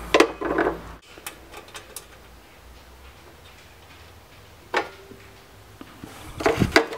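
Sheet-metal cover of a hot-tub GFCI disconnect box being fitted and its bottom screw put in: scattered clicks and light metal knocks, one sharp click about five seconds in and a quick cluster of knocks near the end.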